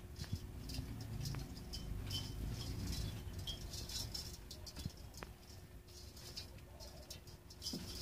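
Captive finches in an aviary chirping: many short, high calls, scattered and overlapping, over a low rumble that is strongest in the first half.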